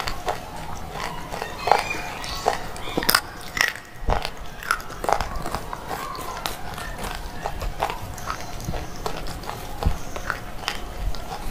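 Crunching bites and chewing of brittle grey slate chunks, mixed with crumbling as fingers break pieces off in a plastic tray: a run of irregular sharp crunches.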